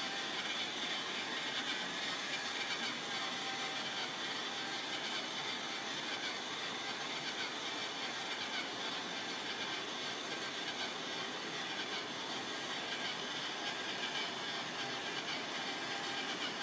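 Battery-powered toy dune buggy's small electric motor and gears whirring steadily as it drives slowly across a tiled floor.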